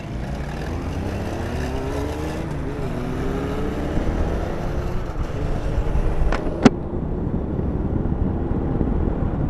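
Motorcycle engine pulling away and speeding up, its note rising steadily over the first few seconds, over a constant low wind rumble from riding. Two sharp clicks about six seconds in, the second louder.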